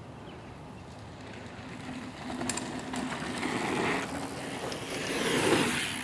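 A bike rolling in over packed dirt, its tyre noise growing steadily louder as it nears the jump, with a few light clicks about two and a half seconds in.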